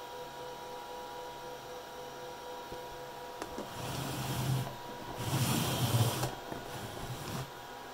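A steady faint hum, then from about four seconds in, scraping and rustling as a hand grips and turns a cardboard firework cake box. The handling is loudest about six seconds in.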